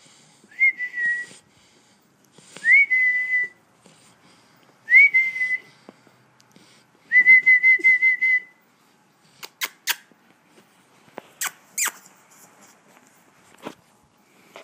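Shar pei snoring with a high whistle on each breath: four whistles about two seconds apart, each rising quickly and then holding steady, the last one longer and fluttering. After that the whistling stops and a few sharp clicks follow.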